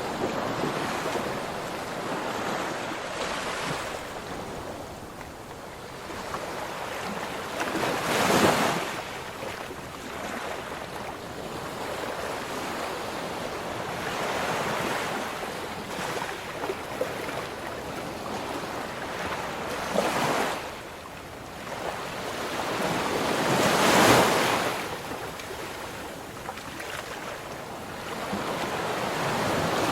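Ocean waves breaking and washing onto a shore, a steady rush of surf with louder crashes about 8 seconds in, near 20 seconds and near 24 seconds.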